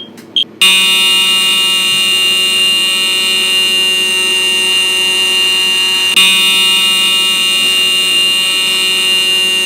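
Electronic fire alarm sounding: a short high beep, then a loud, steady alarm tone with many overtones that starts about half a second in and restarts about six seconds in.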